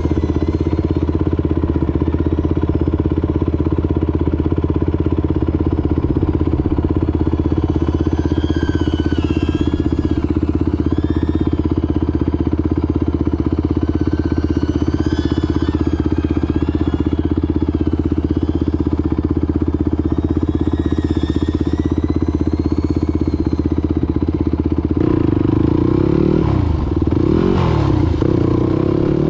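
Motorcycle engine running at a steady speed. About 25 seconds in, its pitch starts sweeping up and down as the revs rise and fall.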